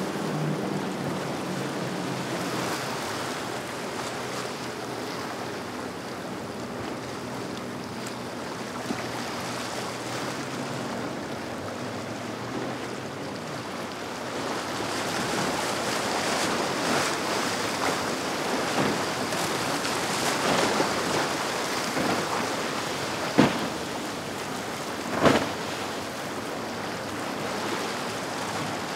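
Waves and choppy water washing, with wind on the microphone; a powerboat's engine drone fades out in the first few seconds. Two sharp knocks about two seconds apart come late on.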